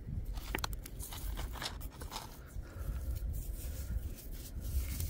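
A hand digging a half-buried agate out of sand and river stones: a string of separate short scrapes and clicks of stone and grit, over a low rumble.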